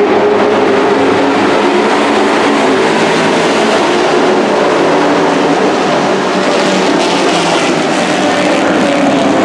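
The engines of several compact pickup race trucks run hard together as the pack laps the oval. It is a loud, continuous mix of overlapping engine notes that rise and fall as the trucks pass.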